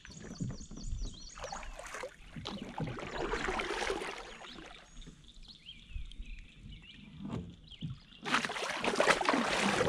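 Double-bladed kayak paddle strokes, the blades dipping and pulling through the water with splashing swells. The strokes come about a second and a half in and again around three to four seconds, and are loudest near the end.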